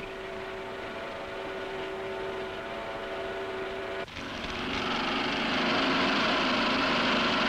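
Steady electric whine of an overhead travelling crane's motor as it lifts railway wagon frames. About four seconds in it cuts to a louder workshop din with the steady hiss of arc welding on wagon underframes.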